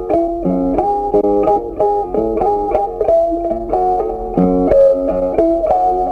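Background music: a plucked guitar playing a melody of quick notes.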